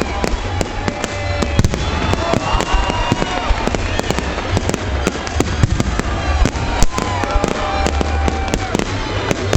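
Fireworks going off overhead: a rapid, irregular string of sharp bangs and crackles, several a second, over a continuous noisy rumble.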